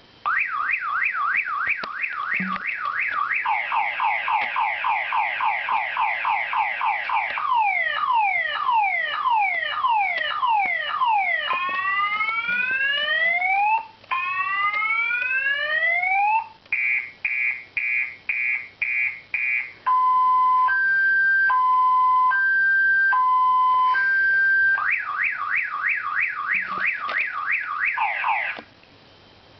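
Car alarm ringtone stepping through a six-tone cycle: rapid chirps, a fast warble, falling sweeps, rising sweeps, quick beeps and a two-tone hi-lo, then back to the rapid chirps before it cuts off near the end.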